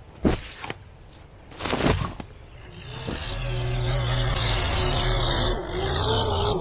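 A steel shovel striking and scraping through sand twice, then a compact tractor with a front-end loader running as it drives up a dirt track. The engine grows louder for about a second and then holds steady.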